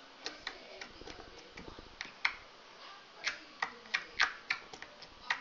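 Glitter putty being worked by hand, giving off about a dozen sharp, irregular clicks and pops, the loudest a little past the middle.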